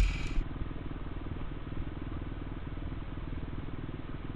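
Motocross bike engine idling steadily, with an even low putter of firing pulses.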